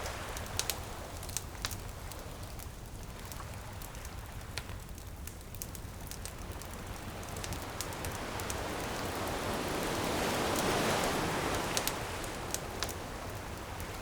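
Bonfire crackling with scattered sharp pops over a steady rush of surf. A wave swells up and washes in about ten seconds in, then eases off.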